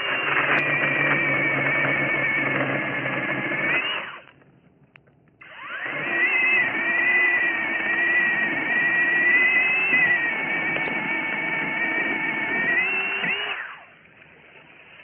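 Cordless brushless mini chainsaw running in two long bursts with a high motor whine, the second starting about five seconds in. In each run the pitch sags as the chain bites into the branch and rises again just before the trigger is released.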